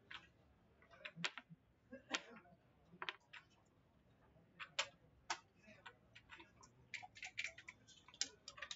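Faint, irregular clicks and clacks of backgammon checkers and dice being handled, bunching into a quicker run near the end as a checker is moved on the board.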